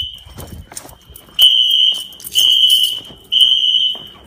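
Wheelock fire alarm horns sounding a steady high beep in the temporal-three evacuation pattern: three beeps close together, then a pause. Low rustling thumps come near the start.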